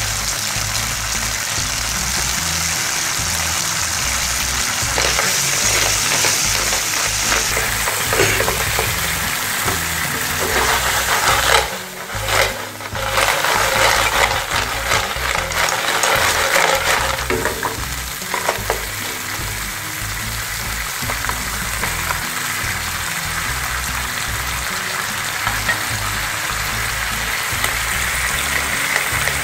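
Cockles sizzling as they fry in a nonstick pan. In the middle the shells clatter and rattle against the pan as it is tossed, then they are stirred through the sauce with a spatula.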